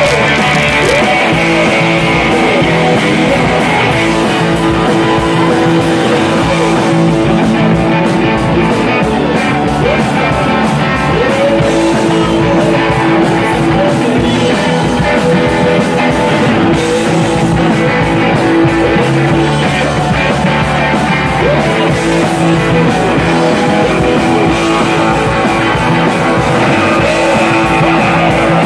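A live rock band playing loud: electric guitars over a drum kit.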